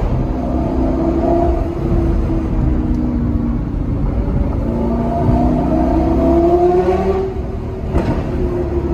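Car engine heard from inside the cabin, revving up through the gears: the pitch climbs, falls at a shift about two seconds in, climbs again and falls near seven seconds. A single sharp pop comes about eight seconds in.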